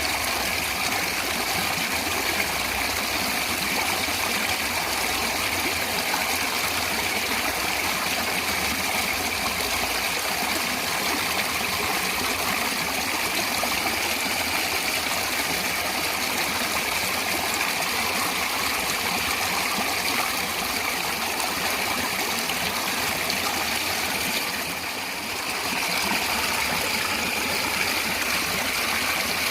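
Water of a natural stream flowing steadily, with a brief dip in loudness a few seconds before the end.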